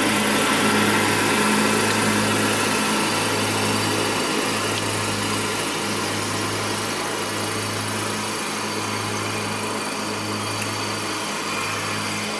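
Car engine idling, heard from inside the parked car's cabin: a steady low hum over an even hiss, dipping briefly a few times.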